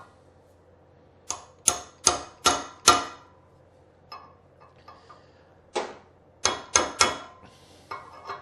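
Hammer taps on a Lambretta fork part, driving it down until it seats. There are five sharp taps about half a second apart, a few faint knocks, then another run of taps starting about six seconds in.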